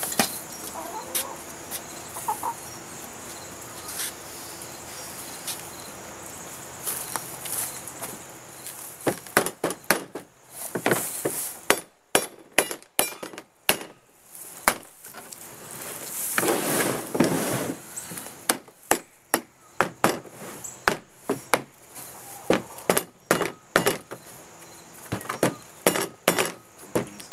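A hammer tapping wooden strips into a cat-door opening cut in a door, a long run of sharp knocks from about nine seconds in. Chickens cluck in the background.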